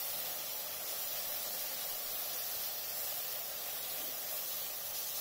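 Chopped vegetables in sauce sizzling steadily in a wok over high heat.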